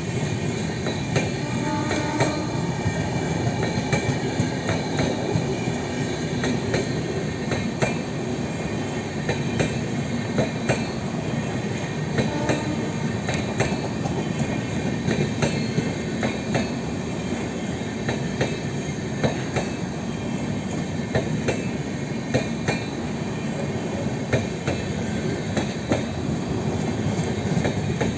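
Humsafar Express train rolling past at close range: a steady rumble of coaches, with wheels clicking over rail joints throughout and some wheel squeal.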